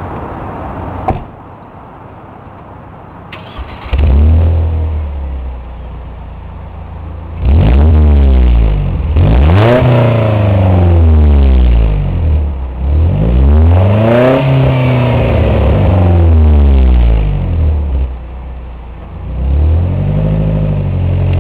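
Mercedes C230 Kompressor's supercharged four-cylinder engine revved repeatedly through an aftermarket Magnaflow muffler. Some revs are short blips and others are held high for a couple of seconds, each falling back to idle.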